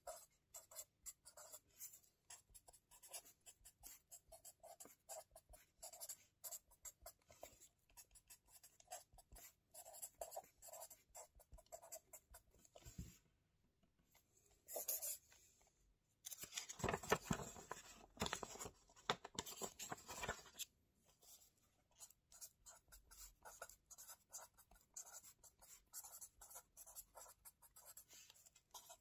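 A pen scratching across a spiral-bound lined notepad in quick, short handwriting strokes. A little before halfway there is a brief pause. A few seconds of louder, denser scratching on the paper follow, then the writing strokes resume.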